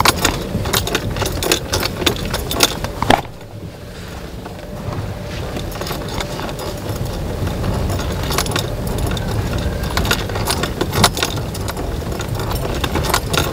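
A car driving slowly along a rutted dirt road, heard from inside the cabin. A steady low rumble runs under frequent knocks and rattles as the car bumps over the ruts. The knocking briefly dies down about three seconds in.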